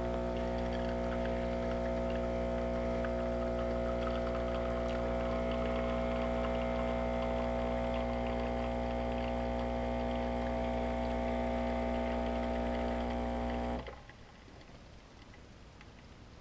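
Automatic bean-to-cup coffee machine's pump humming steadily while it brews and dispenses a coffee, then stopping abruptly near the end.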